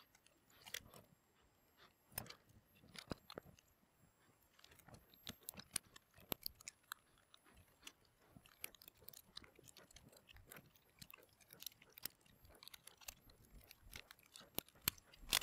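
Faint, irregular small clicks, taps and rustles of a MacBook Pro A2442 logic board and its little ribbon cables being handled and pressed into the laptop's aluminium bottom case, with a few louder clicks near the end.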